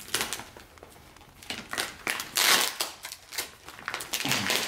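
Plastic shipping bag being cut open with a small blade and handled, the plastic crinkling and rustling in irregular bursts, loudest about two and a half seconds in.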